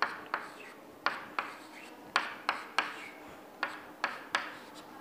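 Chalk tapping on a chalkboard while numerals are written: sharp taps in small groups of two or three, about a dozen in all.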